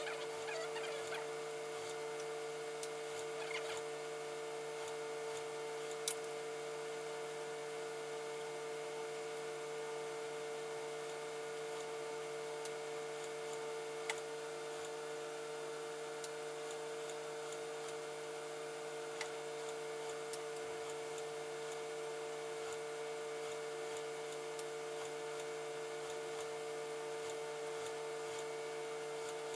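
Industrial sewing machine's electric motor humming steadily, with a few sharp clicks about six, fourteen and nineteen seconds in.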